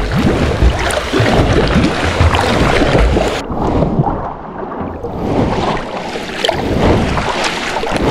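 Water splashing and lapping right at the microphone as it moves through a pool, with low buffeting rumble; about three and a half seconds in the sound changes abruptly to softer sloshing.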